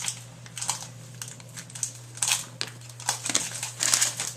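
Crinkling and rustling of a trading-card pack wrapper being handled and opened, in irregular short bursts, over a steady low electrical hum.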